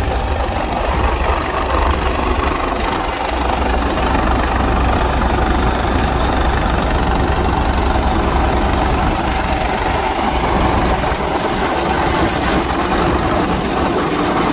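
Helicopter overhead: steady rotor and turbine noise over a heavy low rumble.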